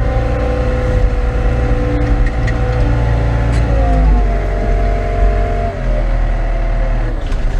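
CAT 924F wheel loader's diesel engine running hard under load, its pitch dropping in two steps about three and a half and six seconds in.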